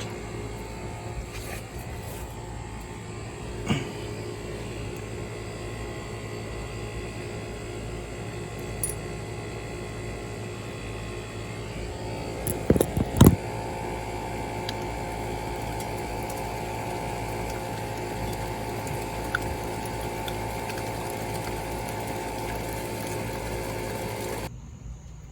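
A steady mechanical hum with a few sharp metal clicks and clinks of hand work on a motorcycle engine's oil strainer cap, the loudest cluster about halfway through; the hum cuts off suddenly near the end.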